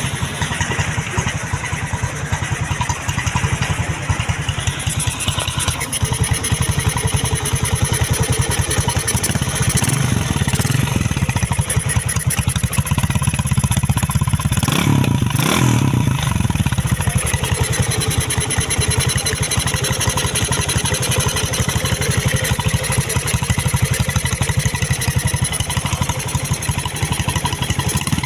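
Motorcycle engine running loudly at a steady fast idle, blipped to higher revs around ten seconds in and again around fifteen seconds in.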